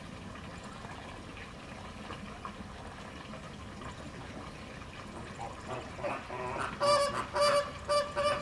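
Waterfowl calling: softer calls build up about six seconds in, then a quick run of loud, short calls follows, about two a second.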